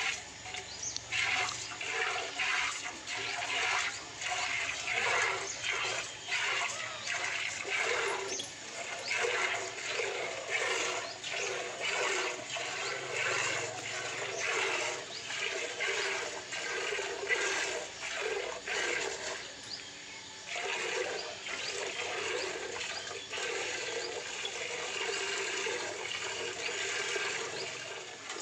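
Streams of milk squirting into a steel bucket as a water buffalo is milked by hand, a steady rhythm of short hissing squirts.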